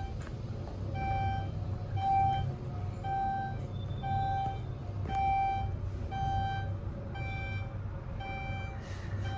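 Schindler 6400 elevator descending, its floor-passing beeper sounding a short single-tone beep about once a second as the car passes each floor, over the steady low hum of the moving car.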